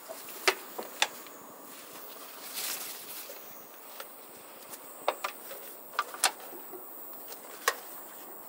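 Gear being handled in the open back of a van: scattered sharp knocks and clicks, about seven in all, with a brief rustle about two and a half seconds in. A steady high insect drone runs behind it.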